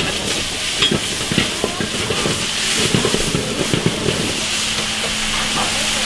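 Food sizzling and frying in a wok while it is stirred, with a steady hiss and many quick irregular scrapes and clinks of the utensil against the pan.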